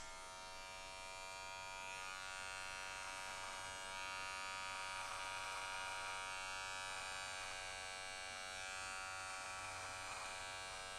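Cordless electric hair clipper running with a steady buzz while trimming the beard's bottom line under the jaw.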